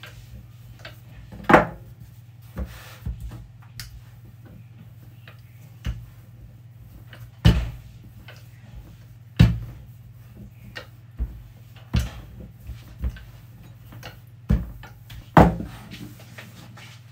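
Rolling pin knocking and thudding on a worktop as dough is rolled out: about ten irregular knocks, a few of them louder, with a steady low hum underneath.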